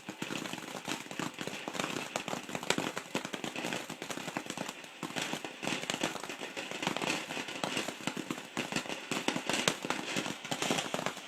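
Consumer firework going off continuously, a dense run of irregular crackles and pops that keeps on going.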